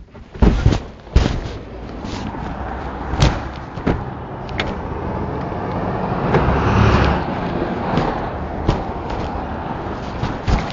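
Car running with a steady low engine and road rumble that swells briefly about two-thirds of the way through, broken by several sharp clunks and knocks.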